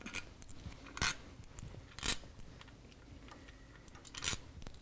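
Sharp metallic clinks, about four of them roughly a second apart and the last the loudest, as steel cap screws are backed out of a Harley-Davidson Twin Cam's cam cover and handled against the tool and the cover.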